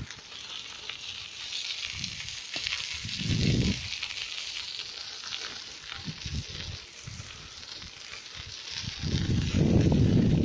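Bicycle tyres rolling fast on a rough asphalt path with a steady crackly hiss, while wind buffets the microphone in low rumbling gusts that grow loudest near the end.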